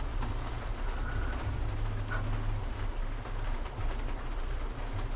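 Valve seat cutting machine with its cutter drive off, its head self-centering over the valve guide: a steady low hum with a hiss and a few light clicks.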